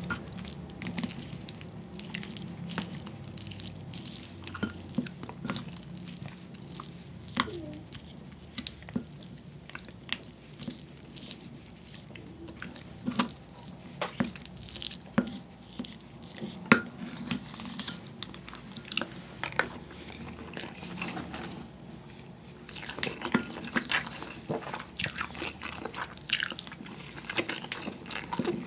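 Rice moistened with soy-sauce marinade being stirred and mashed in a ceramic bowl with a spoon and chopsticks, close-miked: many small clicks and taps of the utensils on the bowl with wet squishing, and chewing in between.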